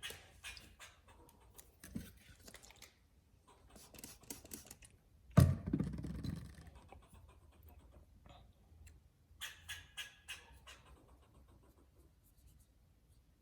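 Squirrel calling in quick runs of short, sharp barks, about five a second, each run lasting about a second. A single loud thump about five seconds in.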